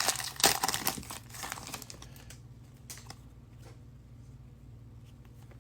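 Trading-card pack wrapper crinkling and tearing as a pack is opened, dense and crackly for about the first two seconds, then dying down to a few faint handling clicks.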